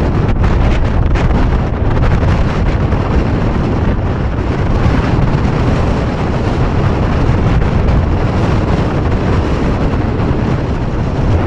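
Strong wind buffeting the microphone: a steady, loud, low rumble of wind noise with no let-up.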